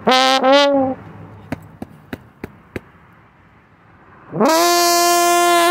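Slide trombone played solo. A phrase ends about a second in on a wavering note, then a pause with a few faint clicks, then a note that slides up into pitch and is held long near the end.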